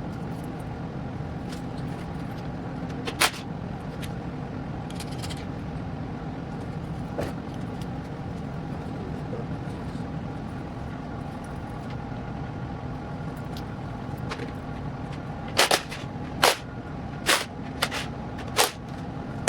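Sharp clanks and knocks of work on a big-block engine being torn down: one at about three seconds and a quick run of about six near the end, over a steady machine hum.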